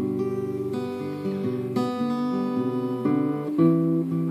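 Guitar strummed with no singing, the chords changing several times.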